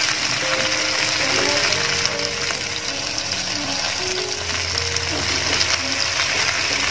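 Background music with a slow melody of held notes, over the steady sizzle of masala-coated tilapia frying in oil in a pan.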